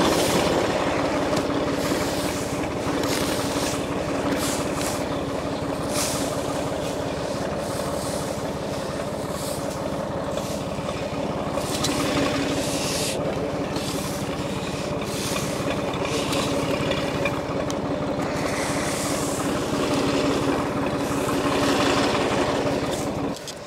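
John Deere 820 three-cylinder diesel tractor engine running steadily, with occasional short knocks.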